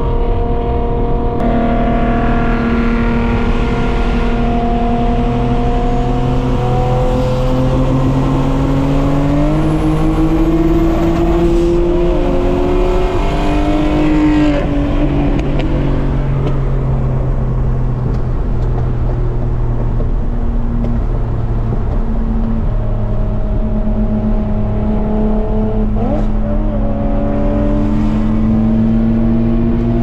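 Nissan Skyline R32 GT-R's RB26DETT twin-turbo straight-six heard from inside the cabin while cruising, its engine drone slowly rising and falling in pitch with road speed, with a change in pitch about halfway through, over steady tyre and road noise.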